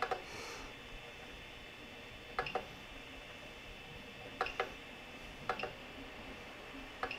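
A handful of short, sharp clicks from the Creality CR-10S control box's rotary knob being pressed while setting the nozzle temperature, a couple of them in quick pairs, over a faint steady whine.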